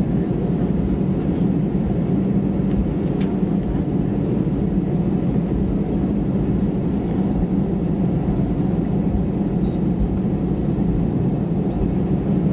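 Steady cabin noise of an Airbus A320 taxiing, its engines giving a constant low hum with a steady droning tone.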